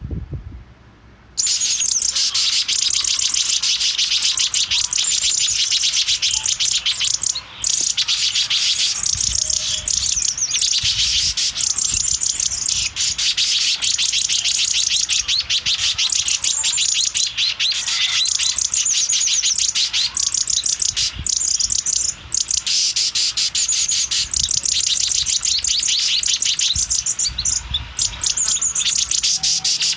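Baby bird chirping loudly in a fast, continuous string of high-pitched cheeps that starts abruptly about a second and a half in, after a brief low bump.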